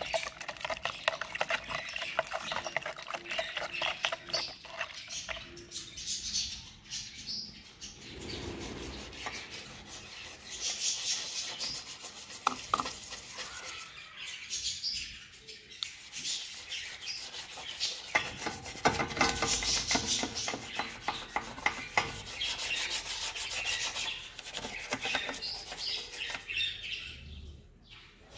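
A toothbrush rubbing and scraping in quick, repeated strokes, working a thick paste of toothpaste and detergent powder in a plastic jug and over a surface.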